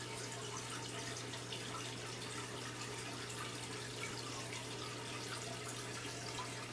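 Aquarium water circulation running: a steady trickling, bubbling wash of water over a constant low hum from the pump.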